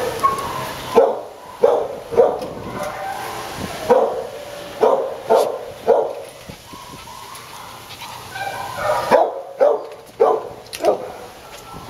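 Dogs barking: about ten short, sharp barks in three clusters, with a lull between the second and third.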